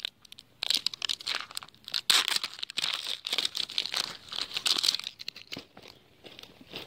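Thin plastic shrink-wrap being peeled and torn off a plastic toy capsule ball: crinkling and tearing rustles that die down to a few faint crackles about five seconds in.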